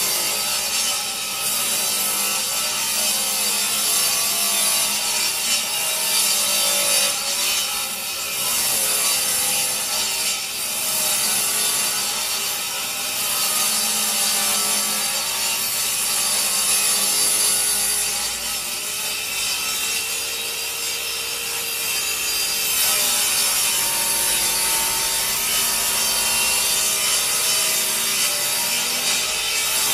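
Parkside PTK 2000 D3 table saw running and ripping a long wooden board lengthwise, a continuous cutting noise whose pitch dips and recovers again and again as the board is fed into the blade.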